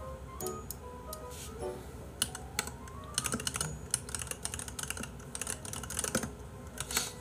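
Fast typing on a computer keyboard: a quick run of key clicks starting about two seconds in and lasting several seconds, over soft piano background music.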